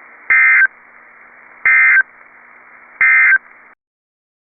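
Three short bursts of Emergency Alert System end-of-message data tones over radio hiss, each about a third of a second and about 1.3 s apart. They are the digital 'NNNN' code that marks the end of the alert. The audio cuts off shortly after the third burst.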